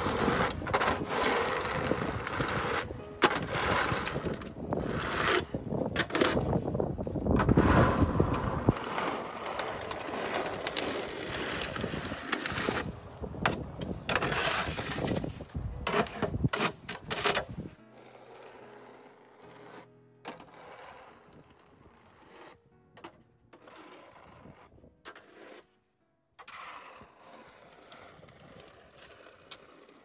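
Plastic snow shovel scraping and pushing snow along an icy driveway, with wind buffeting the microphone. Loud and uneven for most of the time, then much quieter from about eighteen seconds on.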